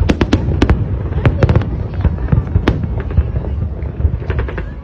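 Fireworks going off: many sharp cracks and pops, some in quick crackling clusters, over a steady low rumble.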